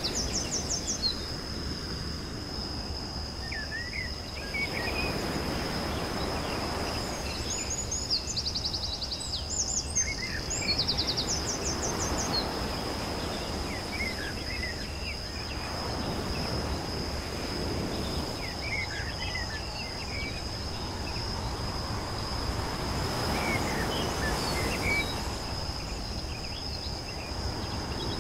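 Outdoor nature ambience: a steady high insect drone with birds chirping and trilling, over a rushing noise that swells and fades every few seconds.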